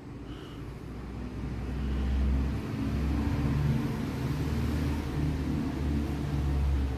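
Low engine rumble of a motor vehicle, building over the first couple of seconds and then holding steady.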